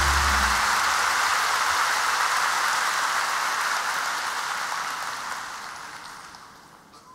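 Large arena audience applauding. The band's last chord dies away in the first half second, leaving only the applause, which fades out over the last two seconds.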